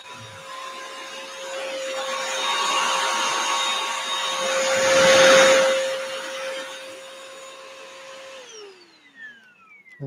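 Bissell CrossWave wet-dry floor cleaner running on carpet: a steady motor whine with a rushing suction noise that swells about five seconds in. About eight and a half seconds in it is switched off and the whine falls in pitch as the motor winds down.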